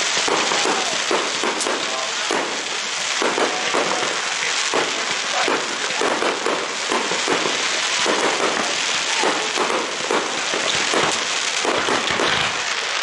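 Fireworks crackling: a dense, continuous run of small pops and crackles.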